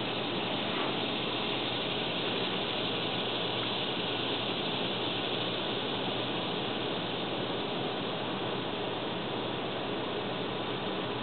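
Steady droning of insects: an even, rasping hiss with no breaks.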